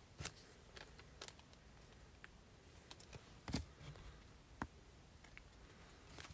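Faint handling of trading cards: scattered light clicks and taps, with a louder tap about three and a half seconds in.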